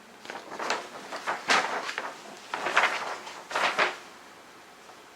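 A large paper poster being handled and folded, crackling in about four loud bursts over the first four seconds.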